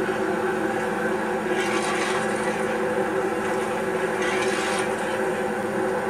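Steady mechanical drone made of several even tones, with a rushing hiss that swells twice, about a second and a half in and again about four seconds in.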